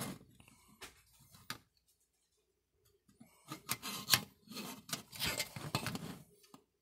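Hard plastic model-kit car bodies handled by hand: a couple of sharp clicks, a short pause, then a busier run of clicks and rubbing from about three seconds in as a body is picked up and turned over.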